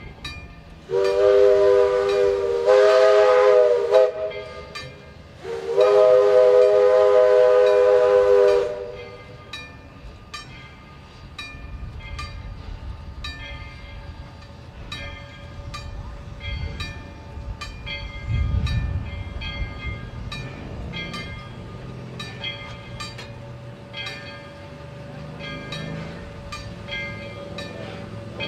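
Virginia & Truckee No. 25 steam locomotive sounding two long blasts on its steam whistle, several notes at once. Its bell then rings steadily about once a second over the low rumble of the engine drawing closer, with a single thump about two-thirds of the way through.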